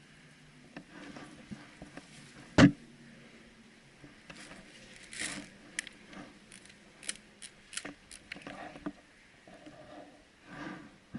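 One loud sharp knock about two and a half seconds in, amid faint rustling and scattered small clicks.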